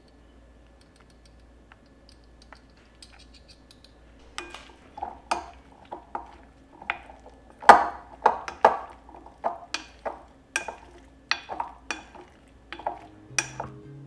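A wooden spoon tossing corn-starch-coated tofu cubes in a glass mixing bowl, knocking against the glass in a run of sharp clinks about two a second, starting about four seconds in.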